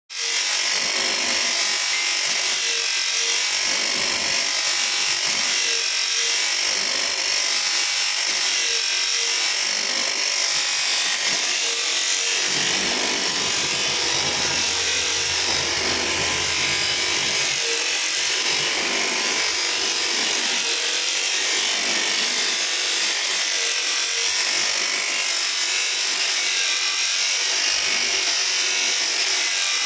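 A machine tool running steadily while machining a cylinder: an even, hissing, high-pitched cutting noise with a faint regular blip about every second and a half. A low hum joins for a few seconds in the middle.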